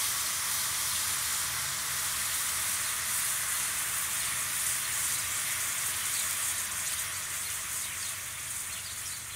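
Bread pieces in besan batter sizzling steadily as they fry in hot oil.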